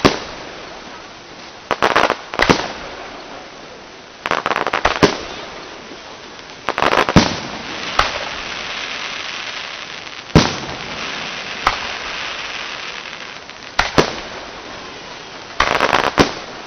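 Aerial fireworks shells bursting: a run of sharp bangs every second or two, some in quick rattling clusters, with crackling and fizzing from the falling stars between them.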